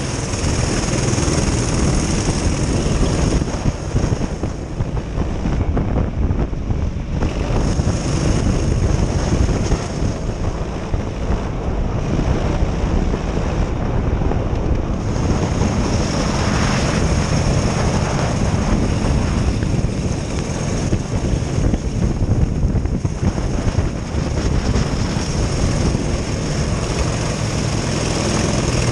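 Onboard sound of a Honda-engined race kart running steadily at reduced pace under a full-course yellow, with wind buffeting the camera microphone.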